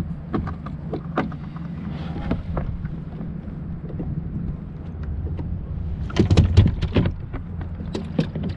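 Water splashing and knocking as a hooked European sea bass is netted alongside a plastic fishing kayak, with a louder flurry about six seconds in, over a steady low rumble of wind on the microphone.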